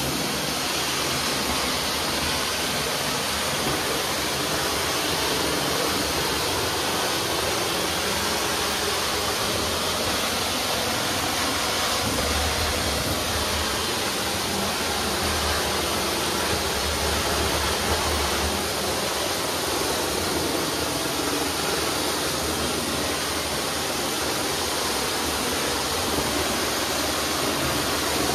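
Steady hissing rush of grout-cleaning equipment at work on bathroom tile: water spray and vacuum suction.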